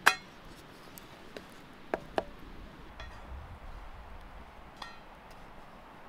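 Stainless-steel frying pan clinking over a wood fire: a sharp ringing clink at the start, two knocks about two seconds in, and a fainter ringing clink near five seconds.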